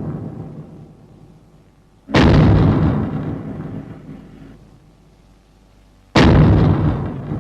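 Heavy boom sound effects. Each boom starts suddenly and dies away over about two seconds, deep and low-heavy. The tail of one boom is fading at the start, a new boom hits about two seconds in, and another about six seconds in.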